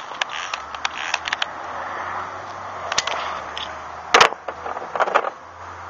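Hand tools and small metal parts being handled on a plastic pickup bed liner: scattered clicks and knocks, with a louder clatter about four seconds in and another about a second later.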